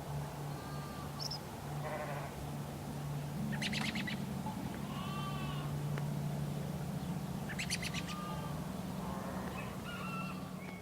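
Farmyard ambience with sheep bleating now and then and birds chirping, over a steady low hum.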